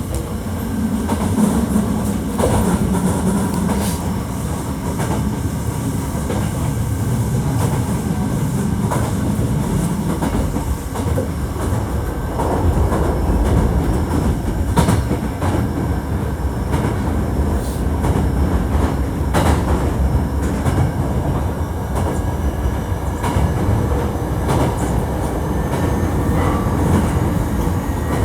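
Hankyu 1300 series electric train running, heard from inside the car: steady wheel and track rumble with occasional knocks over rail joints and a faint steady whine from its Toyo IGBT inverter drive.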